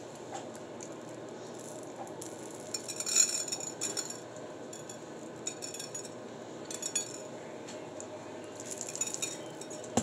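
Candy sprinkles rattling in a jar as they are shaken out, in a few short bursts of light clicking and rattling, the loudest about three seconds in.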